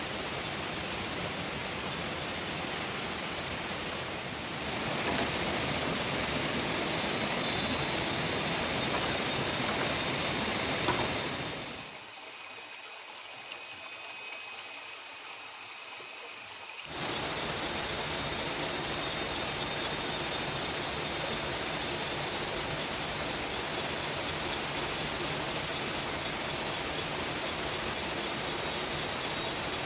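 A steady rushing noise. For about five seconds in the middle the low part drops away, leaving only a thin hiss, and then the full noise returns.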